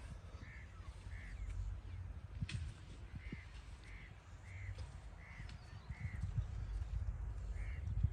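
Crow cawing over and over in short caws, about eight in two runs, over a low steady rumble. A sharp click comes about two and a half seconds in.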